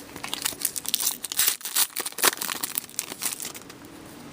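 Plastic trading card packaging crinkling as cards are handled, a run of irregular crackles lasting about three seconds.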